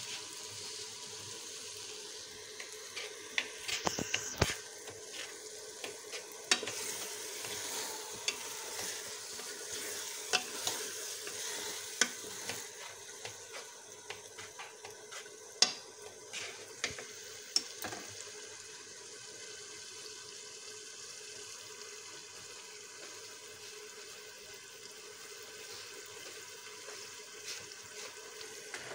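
Chana dal (split chickpeas) sizzling in hot oil in a metal pot while a wooden spatula stirs it, with sharp clicks and knocks against the pot over the first half. Steady sizzling after that.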